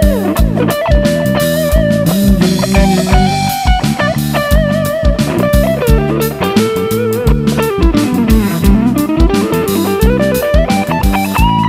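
A live rock band playing an instrumental passage: an electric guitar lead with vibrato and sliding notes, including a long downward slide that climbs back up about three-quarters of the way through, over bass guitar and a steady drum beat.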